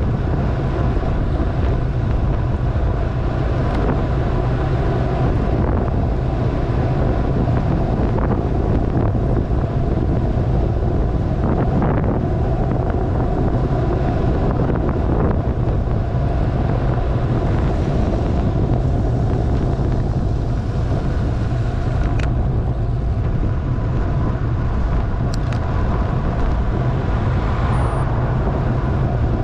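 Steady rush of wind over the microphone with road noise during a fast downhill ride, unbroken and heaviest in the low end.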